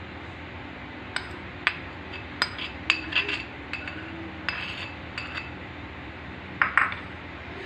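A metal spoon clinking against the dishes as milk is spooned from a small bowl over the rolls: a quick run of sharp taps, then a last pair near the end.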